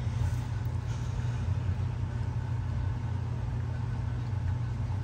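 Steady low hum of a running household appliance, unchanging throughout.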